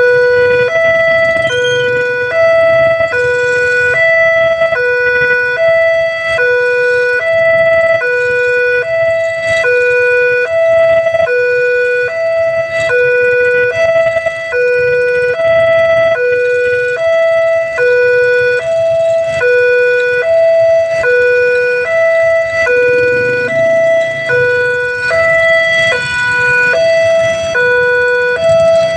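Railway level-crossing warning alarm sounding a steady two-tone electronic siren, alternating evenly between a lower and a higher tone about once a second. It signals that a train is approaching the crossing.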